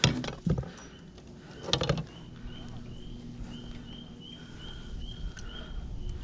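Knocks and rattles of a landing net and a crappie being handled on a boat deck, the loudest cluster about two seconds in. A faint, short high chirp repeats about three times a second through the second half.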